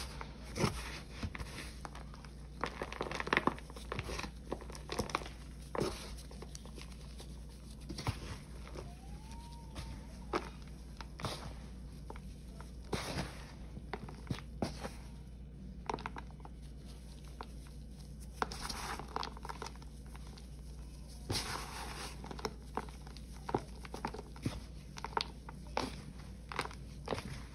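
Gloved hands pressing, raking and scooping crumbly dried cleanser paste powder (Ajax, Pine-Sol and Palmolive) in a plastic tub: irregular soft crunches and crackles, with short spells of rustling as handfuls of powder crumble and fall.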